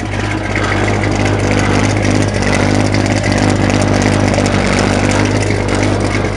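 Rebuilt 350 Chevrolet small-block V8 with a Holley four-barrel carburettor, headers and dual exhaust, idling steadily, heard close to the exhaust tips. A rattle from the tailgate runs along with it.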